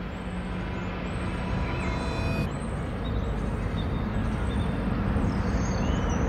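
Outdoor city traffic noise, steady and growing louder, with a few faint short chirps above it.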